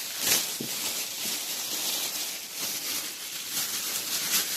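Steady rustling and crinkling of foam packing and plastic wrapping being handled and pulled out of a box, with a couple of louder scrapes near the start and near the end.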